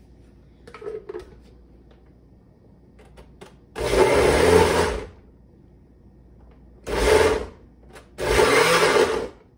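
Countertop blender pulsed three times on peeled garlic cloves in olive oil, a burst of about a second, a short one, then another of about a second, chopping the garlic little by little. A light clack of the plastic lid being fitted comes about a second in.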